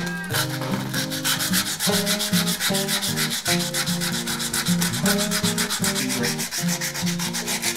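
Quick, even back-and-forth hand sanding of the small steel plate from an old wooden spirit level, several strokes a second, starting just after the start and stopping near the end.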